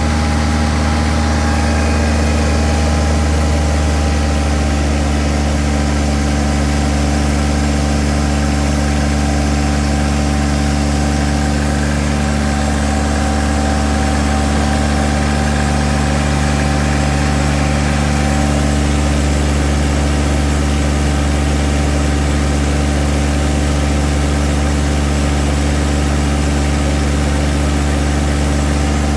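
Yanmar 3T68 three-cylinder diesel generator set running steadily at constant speed under the load of a drone battery charger.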